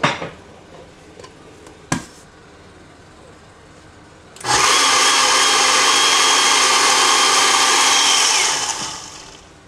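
Countertop blender running for about four seconds, pureeing avocado salsa thinned with a splash of water, then spinning down. Two sharp knocks come before it starts.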